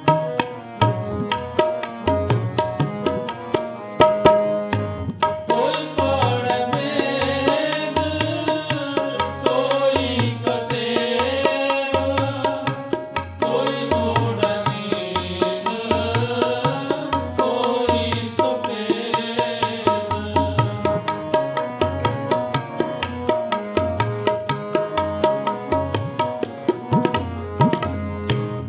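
Sikh kirtan: tabla drumming a steady stream of strokes under two harmoniums holding sustained chords. From about five seconds in to about twenty-one seconds, a voice sings a wavering melody over them.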